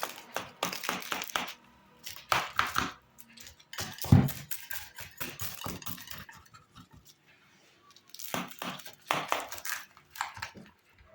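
Kitchen handling noises: rustling and clattering in short bursts, coming in several groups with quiet gaps between, with one louder knock about four seconds in.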